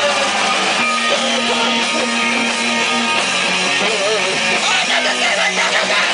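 Loud live rock band playing: electric guitar over a full drum kit with cymbals.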